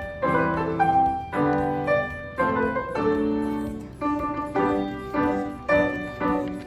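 Grand piano played solo: a steady run of chords, each struck and fading into the next.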